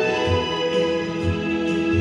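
Instrumental ensemble music with a low beat about once a second.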